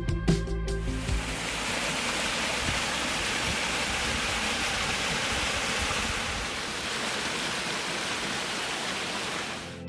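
Shallow forest stream running and splashing over rocks, a steady rush of water. Background music cuts off about a second in.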